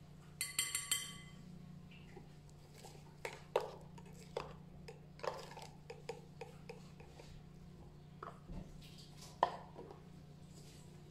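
Metal teaspoon clinking against a glass bowl: a quick run of ringing taps about half a second in, then scattered lighter taps and clicks.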